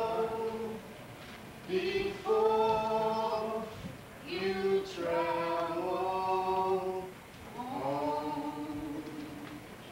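Voices singing a slow song a cappella, probably several singers together, in long held phrases of two to three seconds with short breaks between them. The singing dies away shortly before the end.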